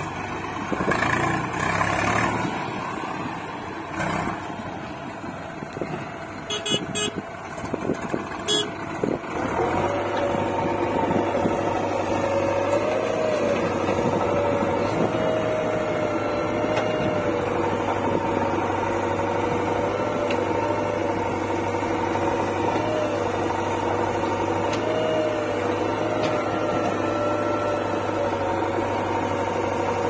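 Diesel engines of a tractor and a JCB 3DX backhoe loader running. For the first nine seconds or so the sound is uneven, with a few sharp clicks; then it settles into a steady engine hum with a faint whine that wavers slightly in pitch.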